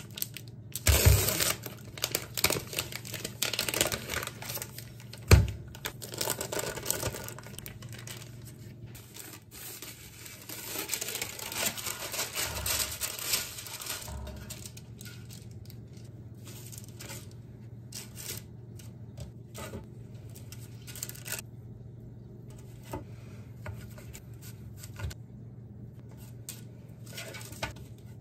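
Crinkly plastic wrapper on a log of cookie dough being handled and torn open, with one sharp thump about five seconds in. Then baking paper rustles on a baking tray, and the rest is quieter, with soft light taps of dough on the board and tray.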